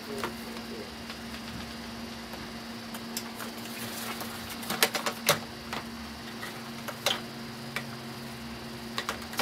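Plastic toy cash register being handled and shifted in its cardboard box, giving a few sharp knocks and clicks about halfway through and again near the end, over a steady hum.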